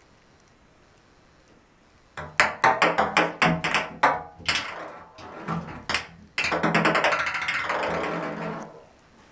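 Ping-pong ball bouncing and knocking in a bathtub as a cat bats it: a quick run of sharp knocks starting about two seconds in, then a couple of seconds of continuous rattling as the ball rolls and skitters across the tub, which stops shortly before the end.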